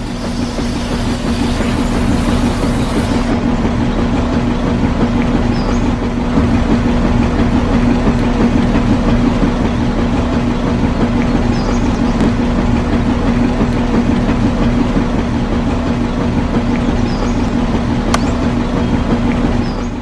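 Small electric motor of a homemade toy concrete mixer spinning its soda-can drum full of wet cement mix, running at a steady speed with a constant hum, and cutting off at the very end.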